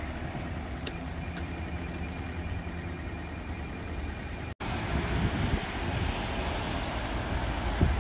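Steady low rumble of passing traffic, cutting out for an instant just after halfway, then returning a little louder with a few low surges.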